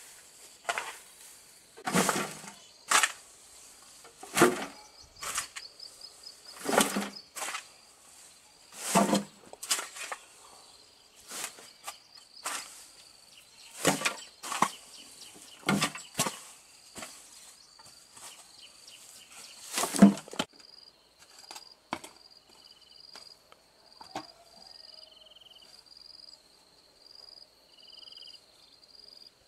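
About a dozen sharp thuds or strikes at irregular intervals of a second or two, stopping about two-thirds of the way in. Insects chirp in a high, steady pulsing trill throughout, and a few short higher calls come near the end.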